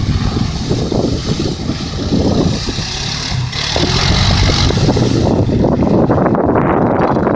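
Honda FourTrax 420 ATV's single-cylinder engine running as the quad drives through shallow water, with the hiss of spray thrown by the tyres loudest around four seconds in. The splashing stops about five and a half seconds in while the engine keeps running.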